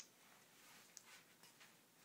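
Near silence: room tone, with a short faint click right at the start and another about a second in.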